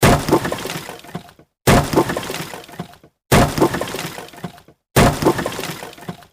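Wood breaking sound effect, played four times in a row: each time a sudden crack and crash that clatters and fades over about a second and a half, then stops briefly before the next one.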